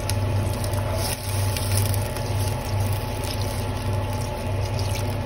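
Water pouring in a steady stream from a jug into a stainless steel pot of frying chicken thighs, splashing onto the meat and hot fat.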